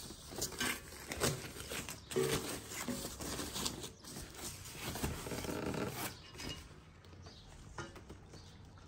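Plastic wrapping rustling and crinkling as a monitor stand is unwrapped and pulled out of its polystyrene foam packing, with a few brief squeaks about two seconds in and around five to six seconds in. It quietens near the end.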